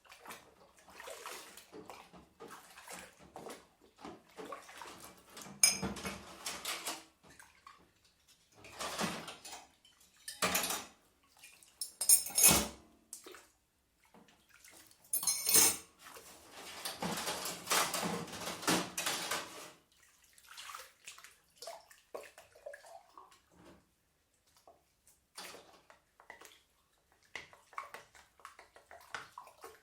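Washing up by hand: water splashing and running in a sink, with dishes and cutlery clinking and clattering in irregular bursts and quieter pauses between.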